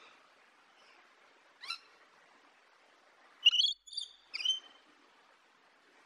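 Rainbow lorikeet calling: one short rising note just under two seconds in, then a louder quick run of three or four chirping calls from about three and a half seconds, over a faint hiss.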